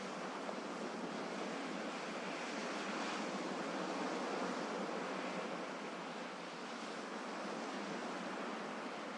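Sea waves washing onto a shore, a steady surf wash that swells gently about halfway through and eases off again.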